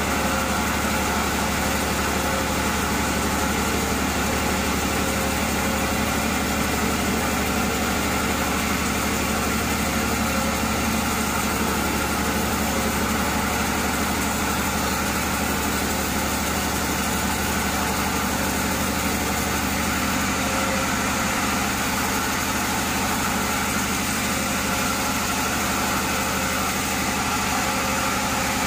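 Vertical band sawmill running with a steady mechanical hum while sawing a log.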